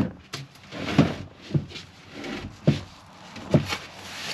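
Wooden slatted bed base of a pull-out campervan couch being dragged forward, giving five or so sharp knocks and thumps spread about a second apart.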